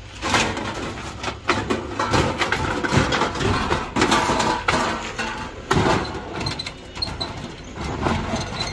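Scrap metal and appliance parts clattering as they are handled and set down: irregular knocks and clanks, several of them loud.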